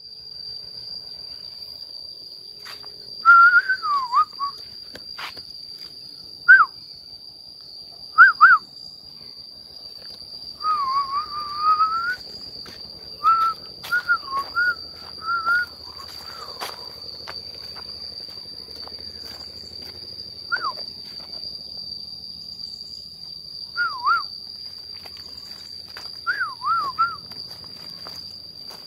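Short whistled notes, some rising and falling, come about a dozen times in scattered groups over a steady high insect drone.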